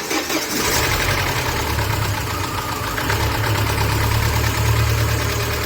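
Chevrolet Niva's four-cylinder petrol engine running at a steady idle on its first trial start after a rebuild with a new timing chain, chain tensioner and hydraulic lifters. The engine noise settles in about half a second in.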